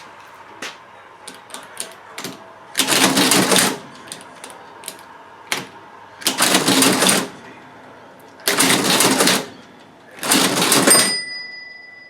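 NCR Class 51 cash register being operated, now cleaned, lubricated and in working order. A few light key clicks are followed by four cycles of its mechanism, each about a second of loud clattering. Its bell rings at the end of the last cycle.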